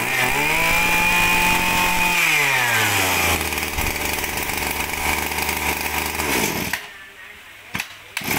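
Robin NB223 23 cc two-stroke brush-cutter engine idling, revved up once and held for about two seconds, then falling back to idle. It cuts out near the end, and after a click the starter cord is pulled and it catches and runs again.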